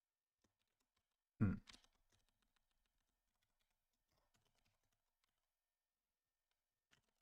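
Quiet computer keyboard typing in a few sparse keystrokes, with one louder short thump about a second and a half in.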